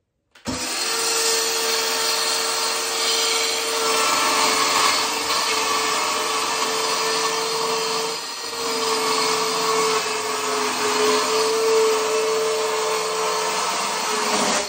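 Cordless handheld circular saw running and cutting through a board in one long pass, a steady whine that starts about half a second in, dips briefly about eight seconds in, and stops near the end as the cut is finished.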